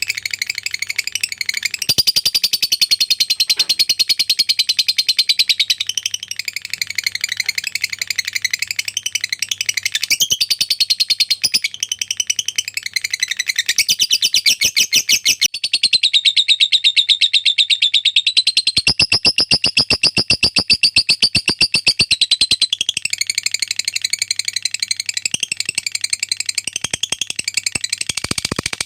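Lovebird singing its long 'ngekek' chatter: a rapid, almost unbroken run of high, pulsed notes, with a faint low hum underneath.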